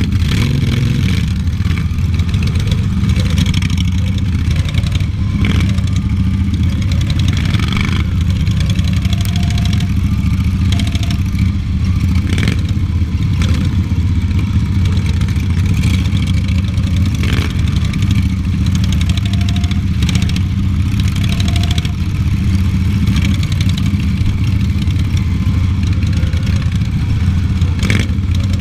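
Racing lawn mower's engine running steadily at speed, heard close up from the driver's seat, with a few sharp knocks scattered through.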